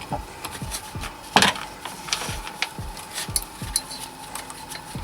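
Workshop handling noises of engine parts and cables being worked on a bench: scattered clicks and scrapes, with one sharp knock about a second and a half in.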